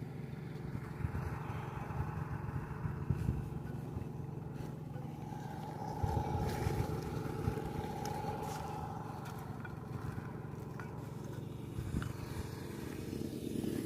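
A motor running steadily, a low hum with a fainter higher tone above it, and a few faint clicks.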